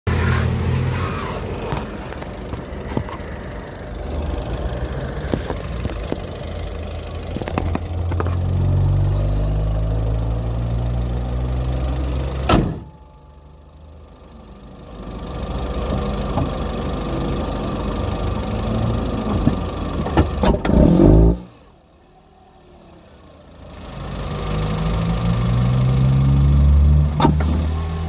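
Chevrolet Corsa 1.4 four-cylinder engine revved, heard mainly as intake noise drawn through an open cone air filter. The revs climb in rising sweeps and then fall away abruptly twice, leaving a much quieter idle before climbing again.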